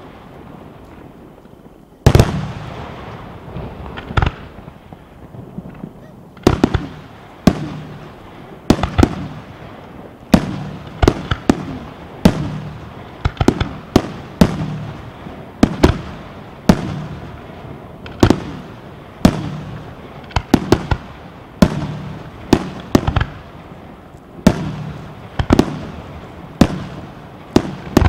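Aerial firework shells bursting in a steady run of loud bangs, about one every second or so, each trailing off in an echoing rumble. The first bang comes about two seconds in.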